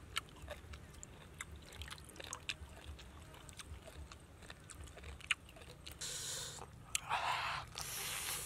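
Scattered small crackles and clicks of a cabbage leaf and live small fish being handled, then from about six seconds in, crisp biting and crunching into a raw cabbage-leaf wrap of small fish.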